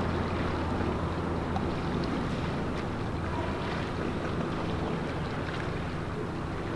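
Motorboat engine running with a steady low hum, with some wind noise on the microphone.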